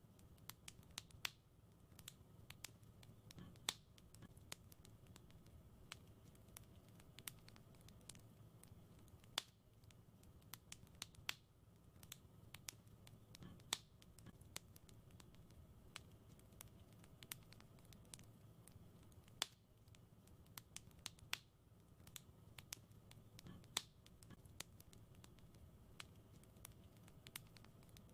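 Wood fire in a fireplace crackling: irregular sharp pops and snaps, several a second with a few louder ones, over a faint low rumble of the burning.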